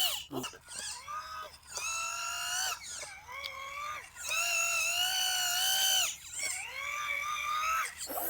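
The electric motor of an RC toy tractor whining in several revs of a second or two each. Each one rises in pitch as it spins up, holds, and then drops off. The tractor is stuck with its trolley sunk in wet mud.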